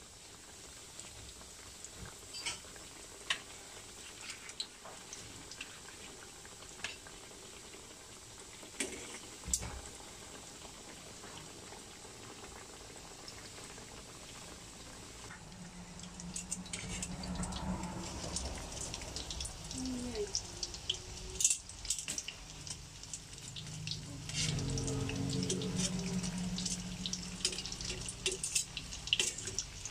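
Oil sizzling around breaded pieces deep-frying in a stainless steel pan, with scattered sharp clicks of metal tongs. About halfway through the sizzle grows louder and more crackly, with a low hum underneath at times.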